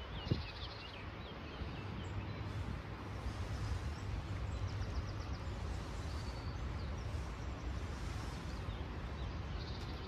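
Outdoor ambience: a steady low rumble with small birds chirping faintly now and then, including a quick run of high ticks midway. A single thump comes just after the start.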